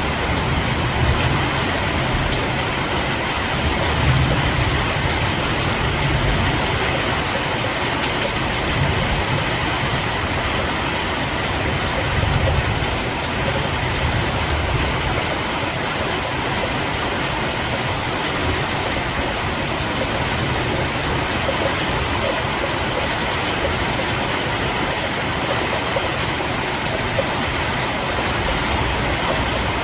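Steady rain falling in a dense, even hiss, with a low rumble that comes and goes in the first half.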